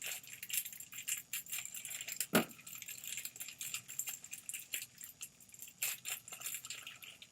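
Thin plastic wrapper crinkling and rustling as it is pulled open by hand, with one sharper, louder crackle a little over two seconds in.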